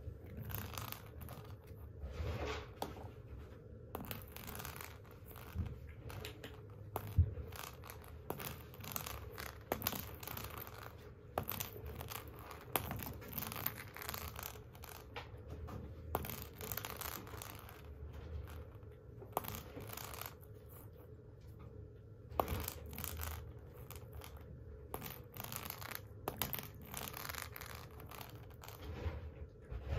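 Irregular scratching and rustling on a corrugated-cardboard cat scratcher, in short bursts with a few sharp clicks, the sharpest about seven seconds in.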